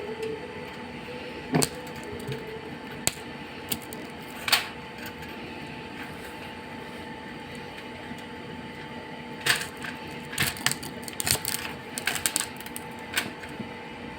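Scattered sharp clicks and light knocks of hand work on parts: a few spaced out at first, then a quick run of them near the end. A steady hum runs underneath.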